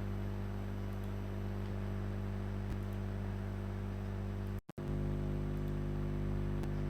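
Steady electrical hum with a faint hiss, broken by a sudden split-second dropout about two-thirds of the way through.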